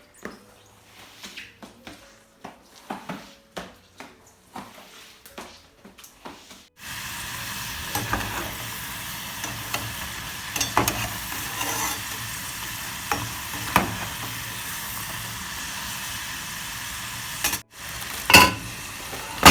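Food frying in a pan: a steady sizzle that starts suddenly about seven seconds in, with occasional sharp ticks of a utensil. Before it, a few light clicks and taps.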